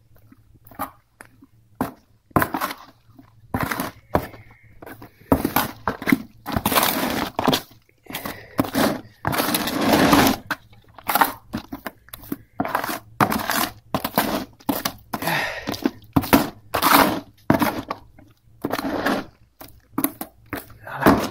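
A hand tool scraping and stirring a gritty paste in a bucket: irregular rasping strokes, some short and some a second or more long.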